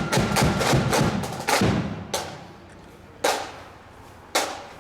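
Marching band drums: a quick run of drum strokes and rolls, then single sharp beats about once a second, the drummers keeping the marching step.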